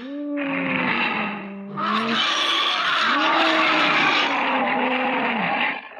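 Troll monster voice sound effect: two long, raspy vocal calls, the second longer, their pitch bending slowly up and down under a heavy gravelly rasp.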